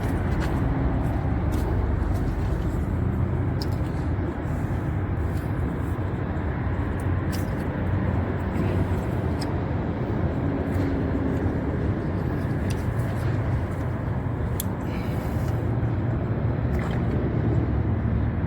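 Car engine idling steadily, with a few light clicks scattered through it.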